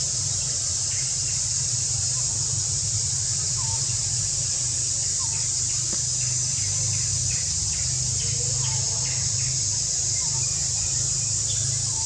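Steady high-pitched drone of an insect chorus over a constant low rumble, with faint short bird chirps scattered through and a quick run of them around the middle.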